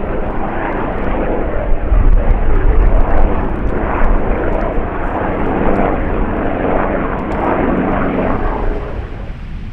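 Helicopter flying by at close range, its rotor and engine noise loud and steady, dropping away near the end.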